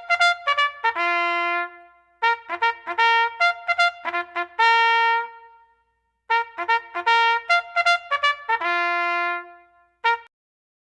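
Background music: a solo trumpet playing a lively tune in three phrases, each a run of quick notes ending on a held note, then one short final note near the end.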